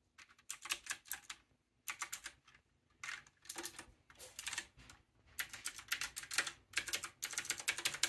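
Typing on a typewriter-style mechanical keyboard with clicky blue switches and round keycaps: quick runs of sharp key clicks, broken by short pauses.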